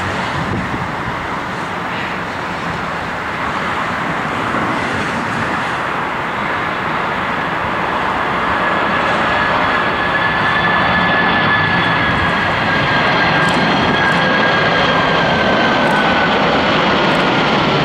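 Boeing 747-400's four turbofan engines on landing approach: a broad, steady jet rush that grows gradually louder as the airliner nears. From about halfway in, a high engine whine rises out of it and falls slightly in pitch toward the end.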